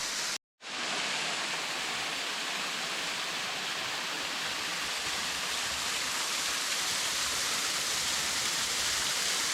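Water falling and running in a small creek waterfall, a steady rushing hiss that cuts out completely for a moment about half a second in.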